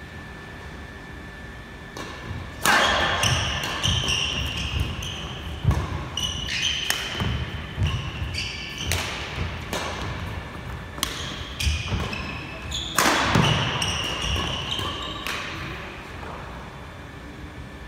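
Badminton rally on a wooden court: sharp racket strikes on the shuttlecock at irregular intervals, with shoes squeaking and scuffing on the floor as the players lunge and move.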